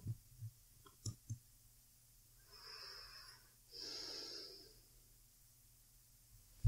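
A woman's slow, sleepy breathing close to the microphone: one soft breath in and out about midway, with a few faint clicks in the first second and a half.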